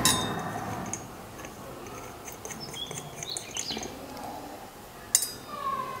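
Small steel bolts and washers clinking as they are handled and set into the brake disc rotor's mounting holes on the hub. There is a sharp clink at the start, light ticks in between, and another sharp clink about five seconds in.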